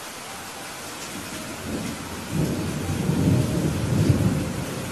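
Steady rain falling, with a long roll of thunder that builds from about two seconds in, peaks a little later and eases off near the end.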